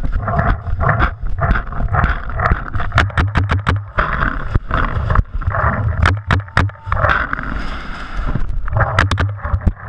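Paintball markers firing in quick strings of sharp cracks, heard through a camera mounted on a paintball gun, over steady rumbling handling and movement noise as the player moves between bunkers.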